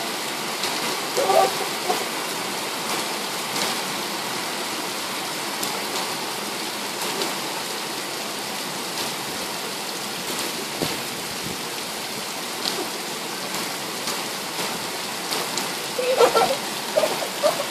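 Heavy rain pouring down outside an open window: a steady hiss with scattered drops ticking on the glass and sill.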